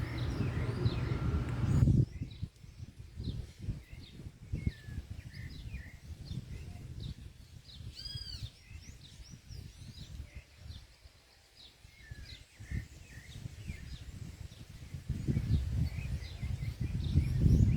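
Small birds chirping and calling around a fruit feeder: many short, quick chirps throughout, with one louder arched call about eight seconds in. A low rumbling noise sits under the chirps for the first two seconds and comes back near the end.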